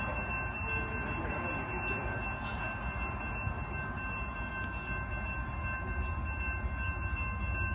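Approaching Union Pacific intermodal train, still some way off: a steady low rumble and hiss, with a few steady high tones over it.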